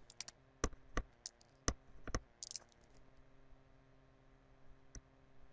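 Pen stylus clicking against a tablet screen during handwriting: a quick run of sharp clicks in the first two and a half seconds, a pause, then one more click near the end, over a faint steady hum.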